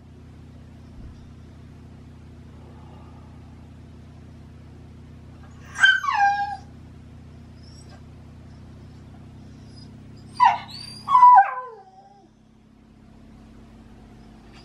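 Male Shiba Inu whining: three high, falling cries, one about six seconds in and two close together around ten to eleven seconds, which the owner jokingly takes for a lovesick call in the autumn mating season.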